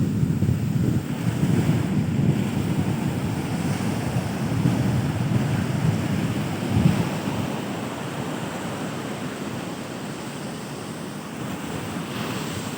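Surf on the shore mixed with wind buffeting the microphone, a rough rumbling rush that eases off in the second half and builds again near the end.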